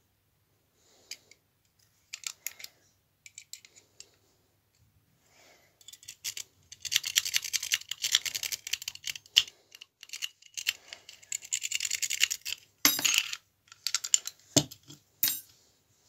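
A metal lock pick working in the keyway of a stainless-steel disc padlock: small metallic clicks and scrapes, sparse at first, then a fast, dense run from about six seconds in. A few sharper knocks follow near the end.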